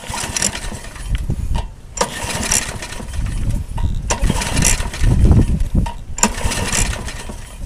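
Lawn mower engine being pull-started four times, about two seconds apart: the recoil starter cranks the engine over but it does not catch, because no fuel is reaching the carburettor.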